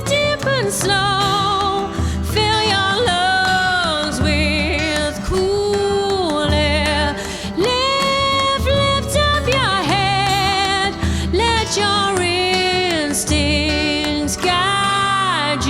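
Live band playing an instrumental passage of a song: a sliding lead melody with vibrato over pulsing bass notes.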